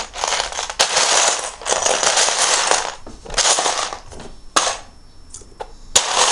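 Plastic Lego bricks clattering as a hand rummages through a pile of pieces, in several rattling bursts. It quiets after about four seconds, leaving a few single sharp clicks of bricks knocking together.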